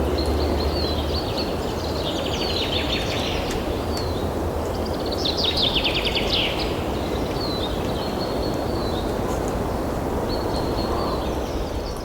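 Small birds chirping, with quick twittering trills about three and six seconds in, over a steady low rumble of background noise.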